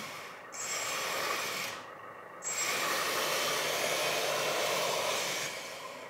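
The LESU Aoue 850K RC bulldozer's onboard sound module playing its simulated engine sound through the model's speaker, just switched on. The noisy engine sound dips out briefly twice, then runs steadily and fades near the end.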